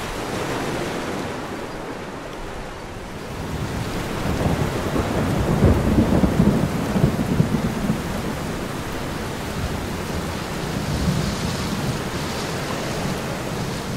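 Thunderstorm: steady rain with a long roll of thunder that swells about five seconds in and rumbles on.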